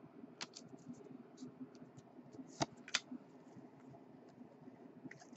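Stack of chrome trading cards handled and flipped through by hand: faint scratchy sliding of card on card with scattered sharp clicks of card edges, the two loudest clicks about two and a half and three seconds in.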